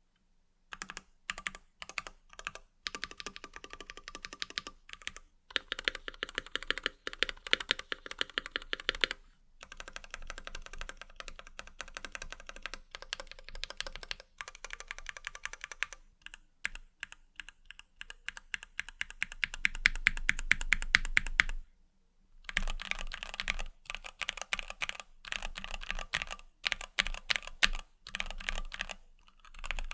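Typing on a Keychron Q1 mechanical keyboard with stock, unlubed Gateron Milky Yellow linear switches and PBT double-shot keycaps. It comes in bursts of fast keystrokes with short pauses between them, and the fastest, loudest run comes about twenty seconds in.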